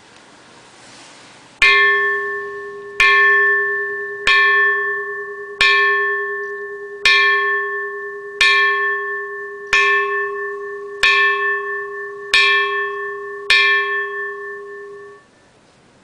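Japanese antique bronze temple bell struck ten times at an even pace, about one strike every 1.3 seconds, each strike ringing on in a steady tone with bright higher overtones that die away quickly. The ringing cuts off suddenly near the end.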